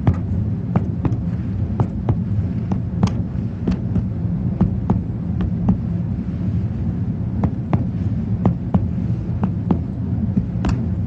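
Finger-on-finger chest percussion: a run of sharp, quick taps, about three a second, over a steady low hum. The taps work across the left chest to find the left border of cardiac dullness, normally resonant over the lung laterally and dull over the heart medially.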